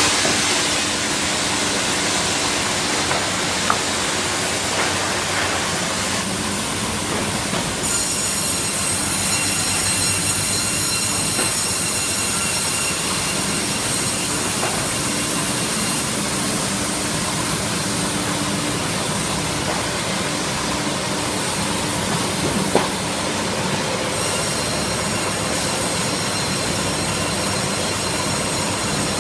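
CNC sawmill line running: steady machine noise with a high whine and hiss, the hiss growing louder about eight seconds in and easing again about five seconds before the end.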